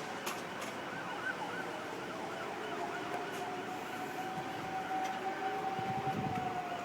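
Sirens sounding: one long wail that rises slowly and begins to fall near the end, with a faster wavering siren above it.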